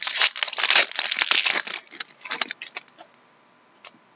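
Foil wrapper of a trading-card pack being torn open and crinkled for about two seconds, followed by a few light clicks and rustles as the cards are handled.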